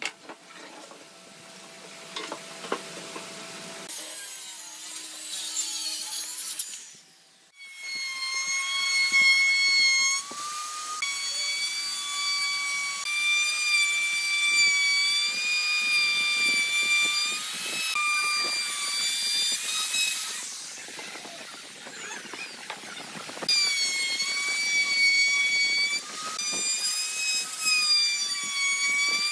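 An electric power tool running with a high-pitched whine, starting about eight seconds in and stopping briefly a few times. Before it comes softer, noisy rasping.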